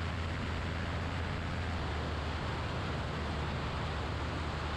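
Steady drone of a Grumman AA-5's single piston engine and propeller in flight, heard in the cockpit, with a low even hum under a constant hiss.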